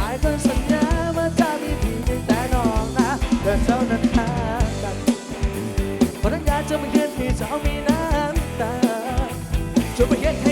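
Live band music from a Thai rot hae band: a drum kit keeping a steady beat under a wavering lead melody, in an instrumental stretch between sung lines.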